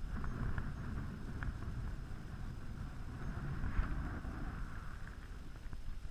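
Wind buffeting the camera's microphone: an uneven low rumble that swells and eases, with a fainter hiss above it.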